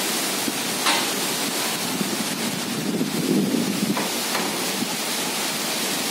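Strong storm wind gusting through palm trees and buffeting the microphone: a steady rushing noise that swells heavier in the middle, with two brief clicks, about a second in and about four seconds in.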